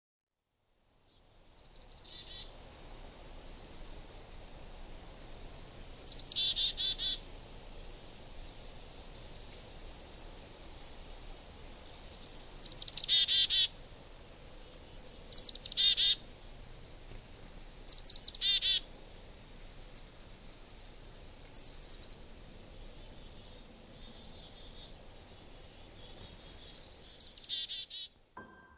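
Small birds calling in short bursts, beginning about a second and a half in: each call opens with high, sharp notes and runs down into a quick series of lower, repeated notes, recurring every few seconds over a faint steady hiss.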